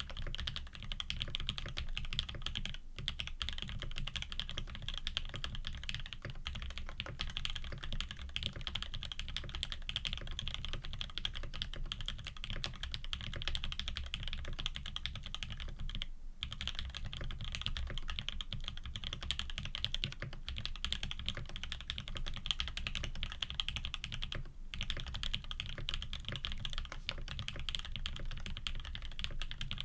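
Fast continuous typing on a custom Frog TKL mechanical keyboard with lubed Tangerine linear switches, an aluminium plate and GMK keycaps, a dense run of keystroke clacks. The typing breaks off briefly three times, about 3, 16 and 24 seconds in.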